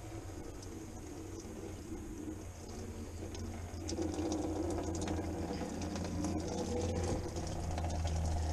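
Radiator drain petcock being worked open by hand with a few light clicks, then coolant draining out of the radiator through the drain hose into a bucket, the flow growing louder about four seconds in.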